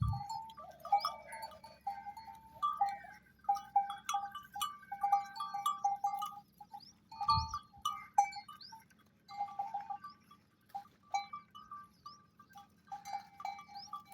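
Goats bleating: many short calls, one after another and sometimes overlapping, with a single low thump about seven seconds in.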